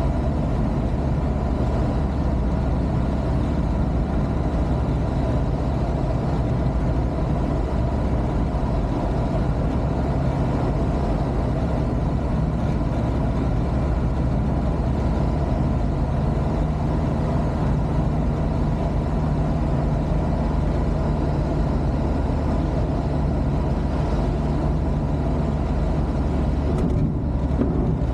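Rotax 582 two-stroke twin engine of a Fly Synthesis Storch ultralight running steadily as the aircraft lands and rolls out, heard from inside the cockpit.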